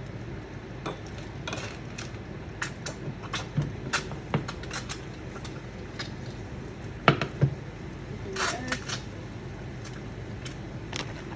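Scattered clinks and knocks of utensils against pots and dishes, the loudest about seven seconds in, over the steady hum of a running range-hood fan.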